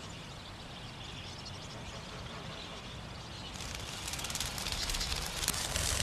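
Water splashing over a faint outdoor background, starting about three and a half seconds in as a dense crackle and growing louder.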